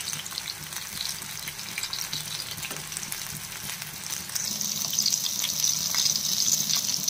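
Chicken pieces in egg and cornflour batter deep-frying in hot oil: a steady sizzle with many small crackles. About four seconds in the sizzle grows louder as a wire skimmer stirs the oil and lifts out the golden-brown pieces.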